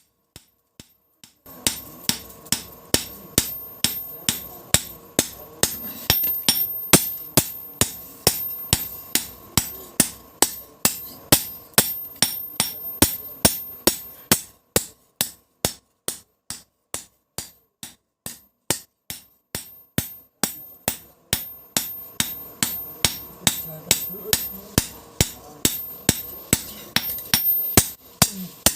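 Blacksmith's hammer striking steel on an anvil while forging a billhook blade, steady repeated blows at about two to three a second, with a steady hum underneath.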